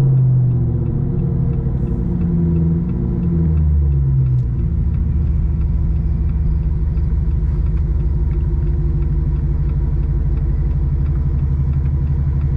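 A car engine running with a low drone. Its pitch shifts up and down over the first four seconds or so, then settles and holds steady.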